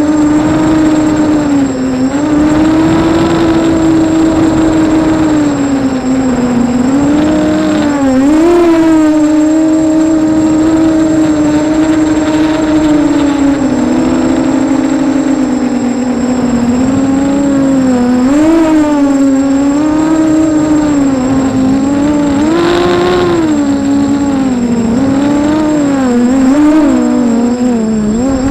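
FPV racing quadcopter's brushless motors whining, the pitch rising and falling repeatedly with the throttle, over a thin steady high whistle.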